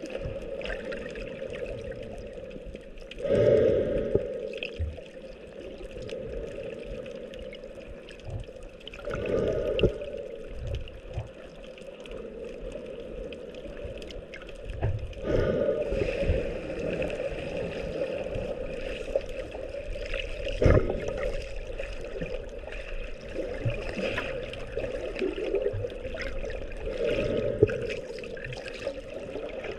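Water sloshing and rushing around an underwater camera as a swimmer moves through the sea, with louder swells about every five or six seconds.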